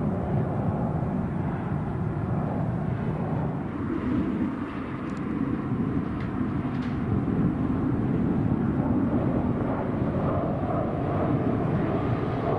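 Aircraft engines, a steady rumble that dips slightly a few seconds in and then builds again.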